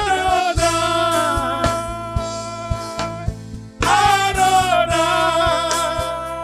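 Gospel worship song sung by a church choir with a band: voices hold two long notes over bass and a steady drum beat.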